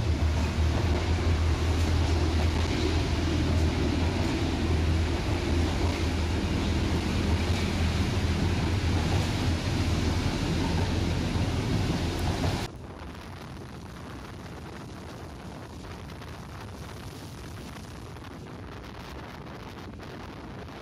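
Tram running along the track: a loud, steady rumble with a low hum. About thirteen seconds in it cuts off abruptly to a much quieter, steady background noise.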